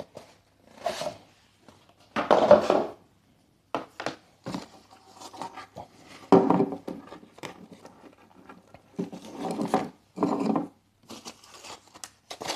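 Unboxing handling noises: irregular rustling, rubbing and light knocks as packaging and its contents are handled.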